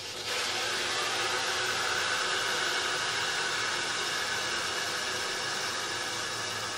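Water rushing through a just-opened inlet ball valve into a two-stage whole-house filter's housings as the system fills: a steady hiss that starts abruptly a moment in.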